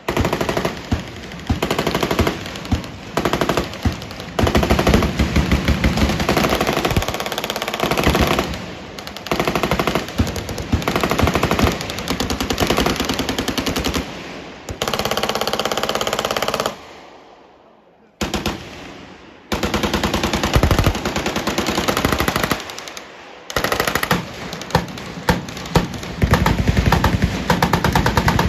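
Sustained automatic gunfire: long, rapid bursts that run into one another, with a short pause about two-thirds of the way through before firing resumes.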